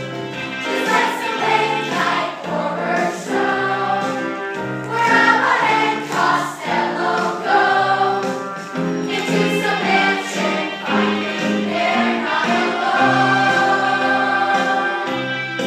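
Music with a choir singing over held, slowly changing chords.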